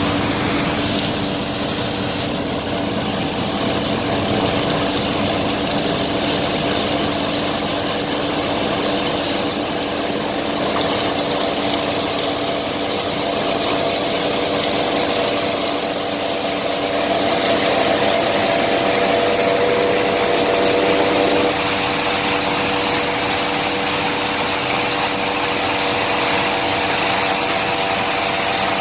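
Cutter combine thresher running steadily while threshing: a constant machine hum with a few held tones over a wash of noise.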